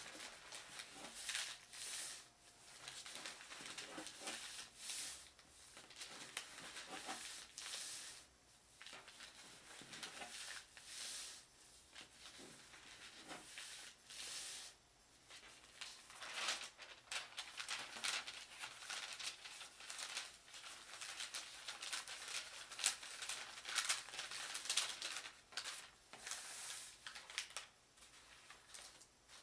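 A sheet of wrapping paper rustling as hands fold it into accordion pleats and press the creases flat, in a long series of short, uneven swishes.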